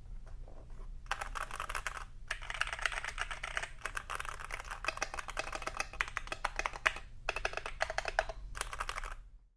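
Fast typing on a mechanical keyboard, a dense run of key clicks starting about a second in, broken by a few short pauses and stopping just before the end.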